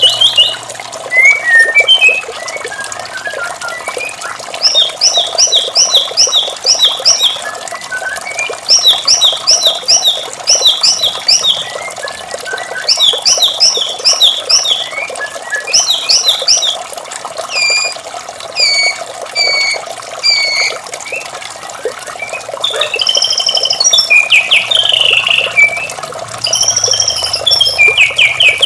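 White-rumped shama singing: phrase after phrase of quick, high whistled notes repeated in fast runs, with some gliding and warbled notes between them. Steady running water sounds underneath.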